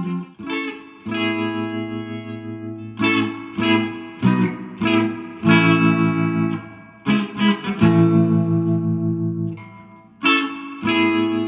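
Electric guitar (a Squier JV Telecaster) played through a 1963 Selmer Thunderbird Fifty amplifier with Celestion Greenback speakers: a phrase of struck chords and short picked figures, each left to ring out and fade before the next.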